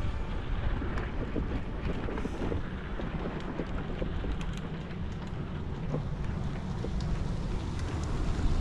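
Wind buffeting the microphone of a bicycle-mounted action camera while riding, a steady low rumble with a few faint ticks.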